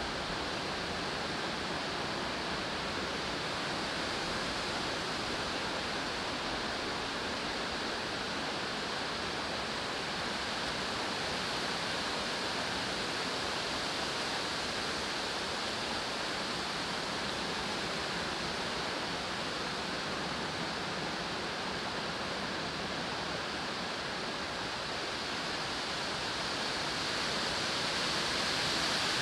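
A stream running steadily: an even rush of water with no breaks, swelling slightly near the end.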